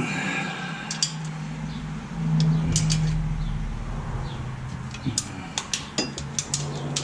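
Scattered light clicks and clinks of hand tools working on a carburetor throttle bracket, more of them in the second half, over a steady low hum.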